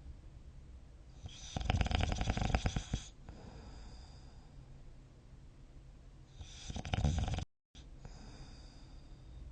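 A person snoring in deep sleep: two long, rattling snores about five seconds apart, the second cut off suddenly by a short gap of silence.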